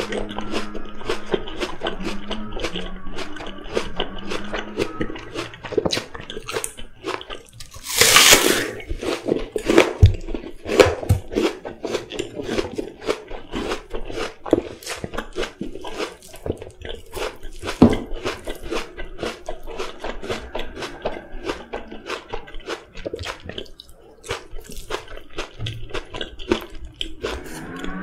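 Close-miked chewing of raw apple: fast wet crunching and mouth clicks, with one loud crunchy bite about eight seconds in.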